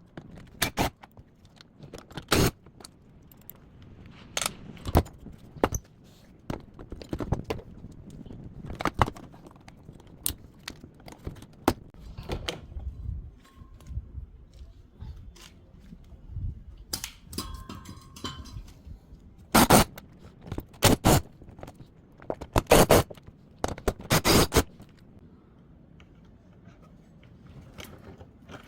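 An LG top-loading washing machine being taken apart with hand tools: irregular clanks, knocks and scraping of metal and plastic parts, with a run of louder knocks about two-thirds of the way through.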